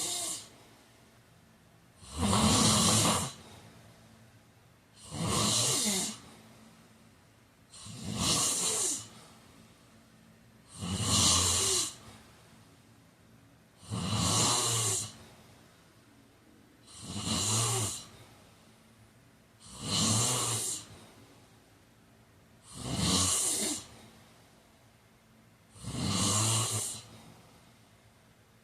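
A sleeping person snoring in a steady rhythm: a loud snore about every three seconds, each lasting about a second, nine in all.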